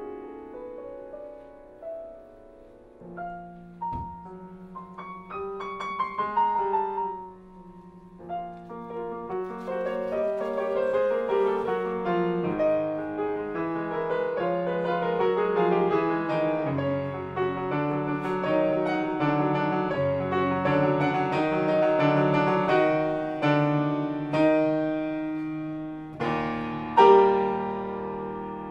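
Solo piano played live: a rising run, a few separate notes, then fuller, busier playing that swells, with a loud chord struck near the end.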